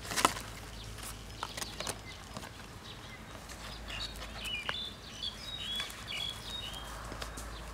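Knocks and rustles as a banana-trunk bundle is stood upright on banana leaves and its string ties are worked by hand, with a sharp knock just after the start. A bird chirps a few times in the middle.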